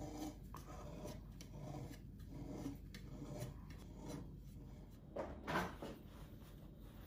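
Faint kitchen handling sounds as cake batter is poured and scraped from a bowl into a metal bundt pan. About five and a half seconds in there is a brief, louder rustle.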